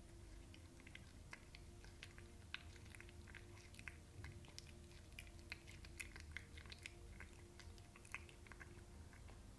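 A cat chewing a piece of raw chicken: faint, irregular wet clicks of chewing that stop about a second before the end.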